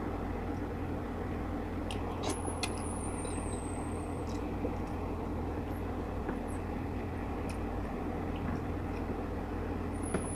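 Steady low background hum, with a few faint clicks as fingers pick through steamed tilapia bones. A thin high whistle slides down in pitch about two seconds in and again near the end.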